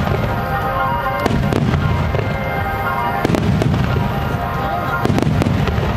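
Starmine fireworks display: shells bursting with sharp bangs in pairs about every two seconds over a continuous low rumble, with music playing along.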